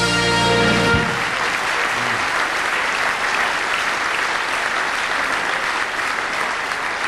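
Large carnival audience applauding steadily. A short held musical chord sounds over the first second, a band's tusch on the punchline.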